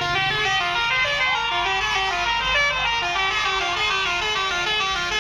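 Tour bus 'telolet' musical horn playing a tune: a quick run of short notes stepping up and down in pitch, several a second.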